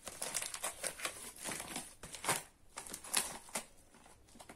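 Crinkling and rustling of small sample packaging as it is handled and opened, with irregular crackles and a couple of louder ones a little past halfway.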